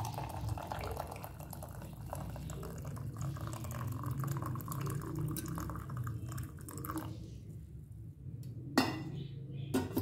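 Hot tea (kehwa) pouring in a steady stream from a metal kettle's spout into a ceramic mug for about seven seconds. Near the end come two sharp clinks, the first the loudest, as the kettle is set down.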